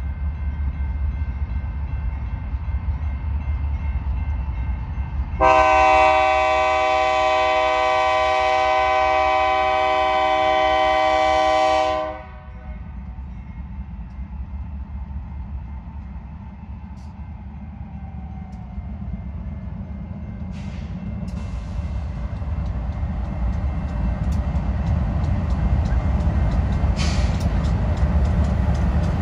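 Diesel locomotive air horn sounding one long blast of about seven seconds, a chord of several notes, over the steady rumble of a train. After the horn the rumble dips, then grows louder toward the end.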